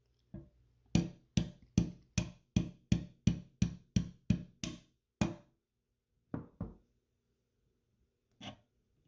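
Small hammer tapping a pin punch to drive out the axis pin of an SMLE Mk III* rear sight leaf: about a dozen even, sharp taps at roughly two and a half a second, followed by a few scattered knocks.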